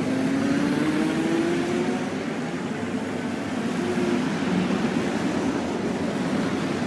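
Street traffic outside, a steady wash of noise, with one vehicle's engine rising in pitch as it speeds up over the first couple of seconds and another engine note passing about four seconds in.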